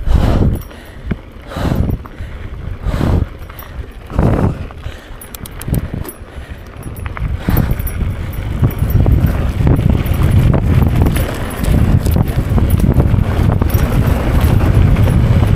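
Mountain bike on a dirt singletrack: the rider's heavy breathing, about one breath every second and a half, for the first half; then the tyres rolling and the bike rattling over loose gravel, getting louder from about halfway.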